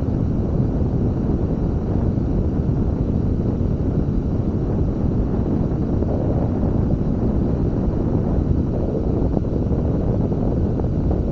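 Steady, loud wind rumble buffeting the camera microphone aboard a catamaran under sail.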